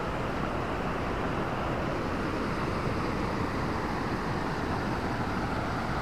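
Steady rushing of a shallow river flowing over stones and small rapids.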